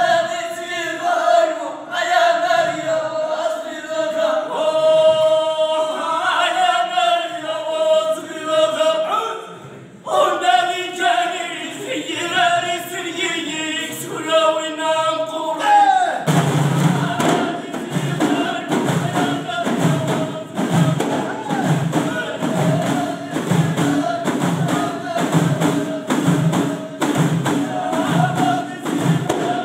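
Ahidous, the Amazigh collective song of the Middle Atlas: a chorus of voices singing together in long held phrases. About sixteen seconds in, the bendir frame drums come in with a steady beat under the singing.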